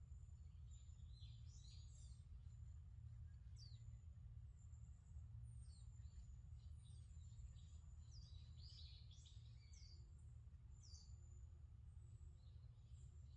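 Several small birds chirping and singing faintly, with many short high calls and quick falling notes throughout, over a steady low rumble.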